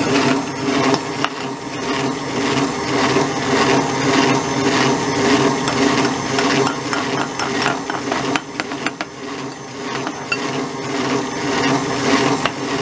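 Moulinex stand mixer motor running steadily at low speed as it beats batter, with frequent short clicks and knocks over the hum.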